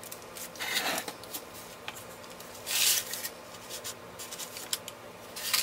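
Paper liner rustling as it is peeled off a sheet of puff pastry and the pastry is unfolded: a few short rustles, the loudest about three seconds in, with light taps in between.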